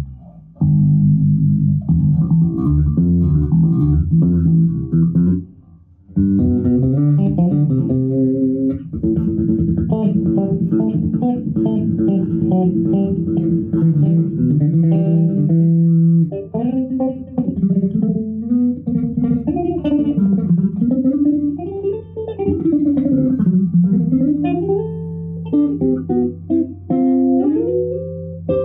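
Six-string electric bass played through a bass amp and speaker cabinet: phrases of notes and chords, with slides up and down the neck in the second half, ending on a rising note that is held.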